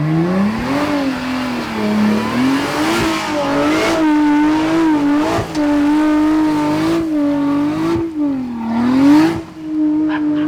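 Toyota Land Cruiser 105 Series engine revving hard under load on a steep climb. Its pitch stays high and wavers up and down, dropping and rising again at the start and once more near the end.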